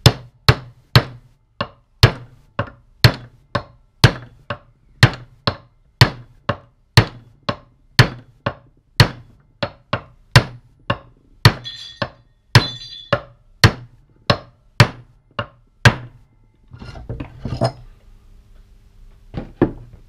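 Hammer striking a steel pipe drift to drive a greased tapered roller headset bearing's inner race down onto a motorcycle fork steering stem. About thirty sharp metallic blows, roughly two a second and quickening slightly, stop about sixteen seconds in, followed by a few quieter clatters.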